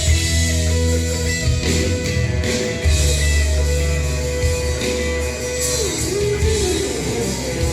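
Guitar played for a sound test: a melodic line that holds one long note through the middle, then bends the pitch down and back up, over sustained low notes.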